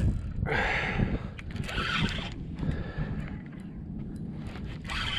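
Wind buffeting a GoPro action camera's microphone with a steady low rumble. Short hissing rushes come through it about half a second in, around two seconds in and near the end.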